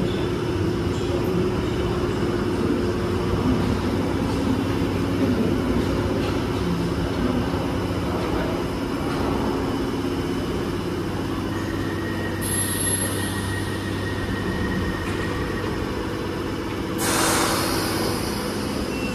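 London Underground 1973-stock Piccadilly line train standing at the platform, its equipment giving a steady hum. A steady high tone sounds for a few seconds midway, and near the end a loud hiss of air as the air-operated doors close.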